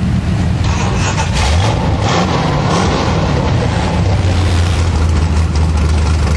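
ATV engines running, one revving up and down in the first few seconds before settling to a steady drone from about four seconds in.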